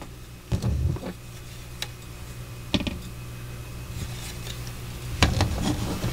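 A plastic model-kit sprue being handled and turned over on a tabletop: several light plastic clicks and knocks, the largest cluster a little after five seconds in, over a faint steady low hum.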